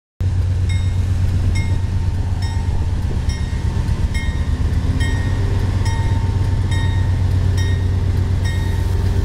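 CSX diesel freight locomotives passing slowly, their engines giving a loud, steady low drone. A short high ringing repeats a little under once a second over the engine noise.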